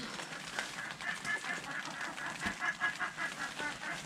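A bird calling in a rapid run of short notes, about five a second, getting louder toward the end.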